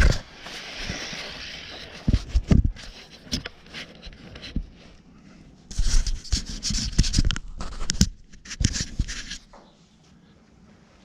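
Irregular knocks, clatter and scraping from workshop handling of tools and metal parts, in clusters, dying away near the end.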